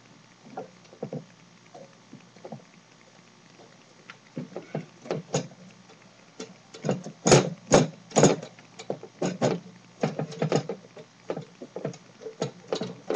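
Bunk-bed frame pieces knocking and clunking together as they are fitted by hand. A few light taps at first, then a quick irregular run of sharp knocks from about four seconds in, loudest just past halfway.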